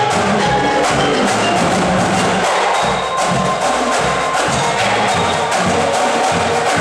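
Mallet percussion ensemble of marimbas and other keyboard percussion playing a groove together, with many mallet strikes in a steady, fast rhythm over changing low bass notes.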